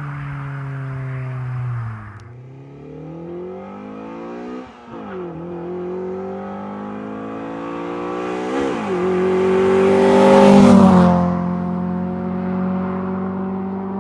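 A 1999 Nissan Primera's swapped-in SR20VE 2.0-litre four-cylinder with variable valve lift, at full throttle on a quarter-mile run. The revs fall about two seconds in, then climb hard through two gear changes. The engine is loudest as the car passes, then drops in pitch as it goes away.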